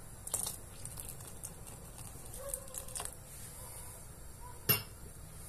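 Wooden spoon stirring thick bean broth in a pot, with faint scrapes and clicks and one sharp knock near the end.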